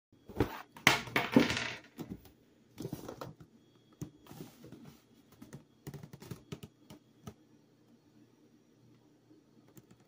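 Cardboard box being handled: a burst of scraping and rustling about a second in, then scattered light taps and knocks that stop after about seven seconds.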